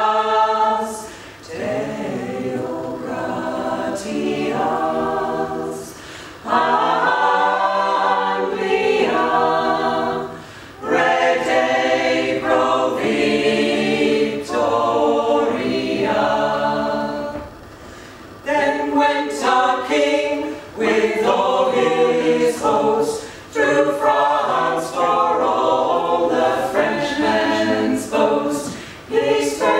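Small mixed a cappella choir of men's and women's voices singing in harmony, in phrases separated by short breaths, with a longer pause a little past the middle.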